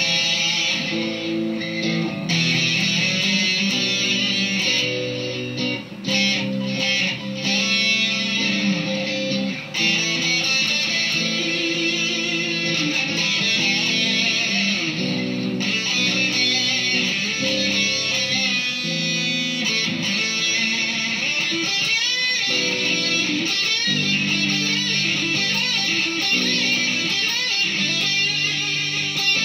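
Electric guitar, a Squier Bullet Stratocaster through a Marshall Silver Jubilee amp with Greenback speakers, playing sustained notes and chords with overdrive and fuzz. The playing breaks briefly twice in the first ten seconds.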